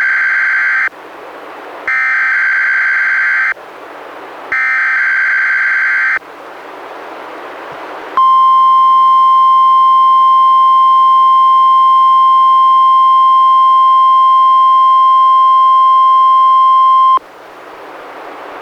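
NOAA Weather Radio Required Weekly Test from a Reecom R-1630 weather radio. Three identical bursts of the EAS SAME digital header, each a harsh warbling screech about a second and a half long, are separated by radio hiss. About two seconds after the last burst comes the steady 1050 Hz warning alarm tone, held for about nine seconds before it cuts off suddenly.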